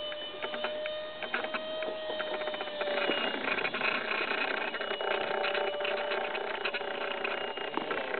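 Electric ducted fan of an RC Albatros jet model in flight, a steady whine that sags slightly in pitch, over a dense rapid clicking crackle that grows busier about three seconds in.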